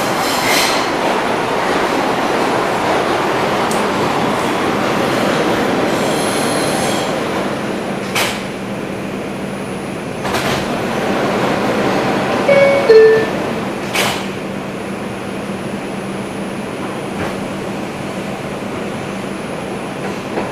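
Bombardier R142 subway car running through a station, heard from inside the car: steady rumble of wheels on rail that slowly gets quieter, with three sharp clicks of wheels over rail joints and brief squeals about two-thirds of the way in. A steady hum comes in about halfway.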